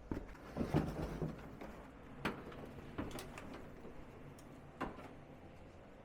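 Handling noise: a cluster of knocks and rustle about a second in, followed by a few single sharp knocks or clicks spaced a second or so apart.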